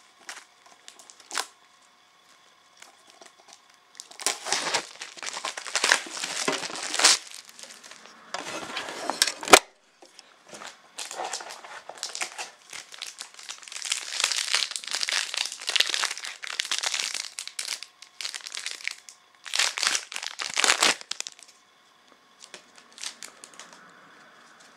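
Clear plastic wrapping on a trading card tin crinkling and tearing as it is pulled off, in several bursts of handling, with a sharp click about nine and a half seconds in.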